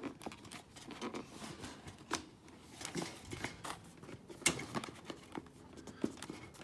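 Cardboard box and packaging being handled: irregular rustling and scraping with scattered sharp clicks as a tightly packed camp stove is worked loose from the box.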